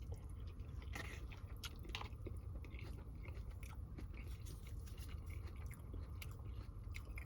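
A person chewing a mouthful of chicken sausage linguine, with soft scattered mouth clicks and smacks.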